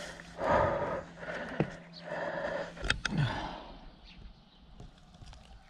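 Dry leaves and grass rustling in several short bursts as a landed largemouth bass thrashes while held down by hand, with a couple of sharp clicks about three seconds in.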